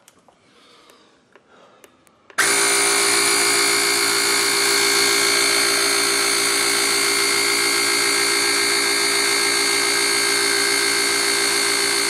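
Travelman T1 jump starter's built-in 12 V air compressor inflating a car tyre. After a couple of seconds of faint handling noise it switches on suddenly, about two seconds in, and then runs steadily.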